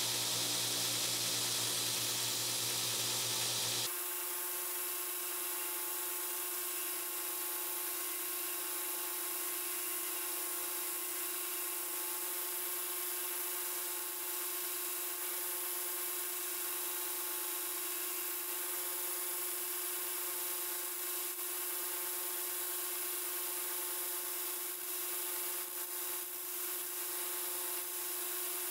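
Belt grinder running, sanding the edge of a thin wooden template against its belt: a steady motor hum with a high abrasive hiss. The sound changes abruptly about four seconds in, then holds steady, wavering a little near the end.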